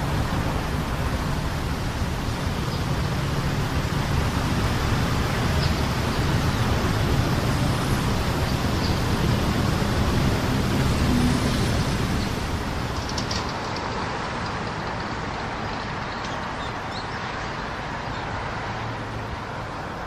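Steady city traffic noise with a low engine hum, with a few faint, short bird chirps now and then. The traffic noise eases off a little after about twelve seconds.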